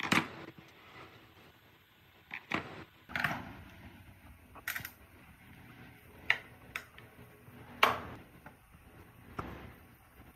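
Handling noise of a red plastic power-tool handle housing and its trigger switch being taken apart on a workbench: about eight hard, sharp clacks at uneven intervals as the plastic parts and tools knock together and against the bench.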